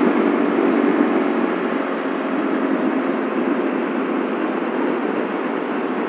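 Steady rush of wind and road noise on an action camera's microphone while riding a Yamaha Mio Soul automatic scooter, with a faint engine hum under it that fades within the first couple of seconds.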